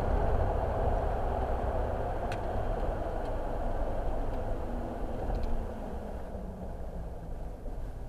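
Car running, heard from inside the cabin: a steady low engine and road rumble as it reaches the end of the road, quietening about five and a half seconds in, with a faint click about two seconds in.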